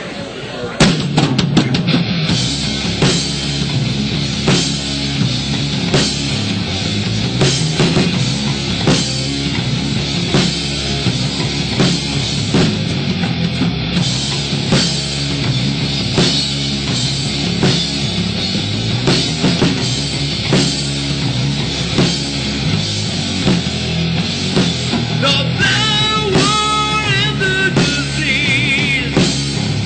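Live heavy rock band playing loud: distorted electric guitars, bass and a drum kit kicking in together about a second in, with a steady drum beat. Near the end a vocalist starts singing into the microphone.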